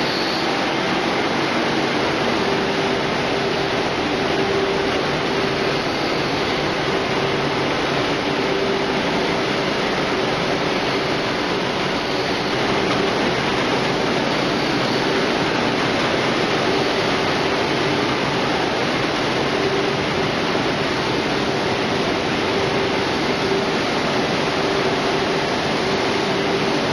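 French fries production line machinery running: a steady mechanical noise from motors and conveyors, with a faint hum that comes and goes.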